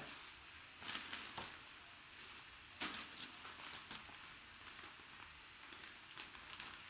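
Plastic wrap and a cloth bag rustling and crinkling as they are handled, with a few short sharper crackles, the loudest about three seconds in.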